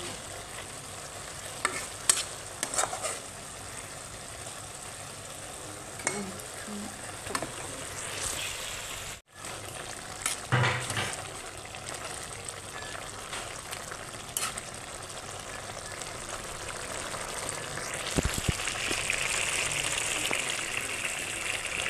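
Food sizzling in a wok while a metal spatula stirs and scrapes through it, with occasional sharp scrapes and knocks against the pan. The sizzle grows louder and fuller near the end.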